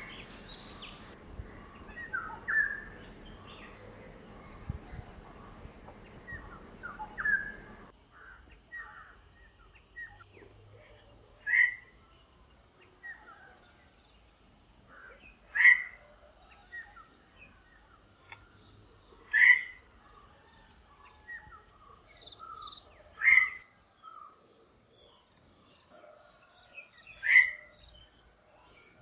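Black-hooded oriole calling: short loud calls repeated about every four seconds, with softer chirps between them.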